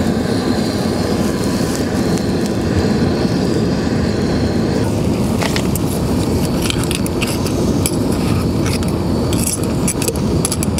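A metal spoon clinking and scraping in a small camping-stove pot of steaming cockles being stirred, the clinks coming from about halfway in, over a steady outdoor rushing noise.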